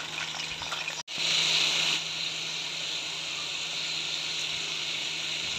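Chicken pieces sizzling in hot oil in a karahi, a steady frying hiss over a faint low hum. It cuts out for an instant about a second in, then comes back louder for about a second before settling.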